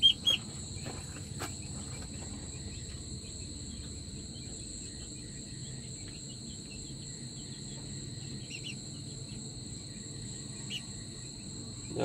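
Steady high-pitched insect chorus. A young Aseel chick being held peeps sharply a couple of times at the start and faintly a few more times later.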